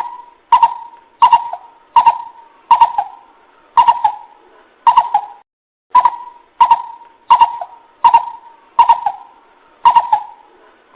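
Coucal (bubut) calling: a steady series of short, deep hoots, about one and a half a second, with a brief gap midway. The call is played as a lure to attract other coucals.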